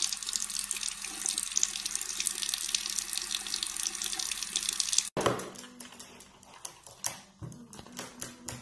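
Bathroom sink faucet running a thin stream of water into the basin, a steady splashing hiss. It cuts off abruptly about five seconds in, leaving a much quieter stretch of scattered light clicks and taps over a faint low hum.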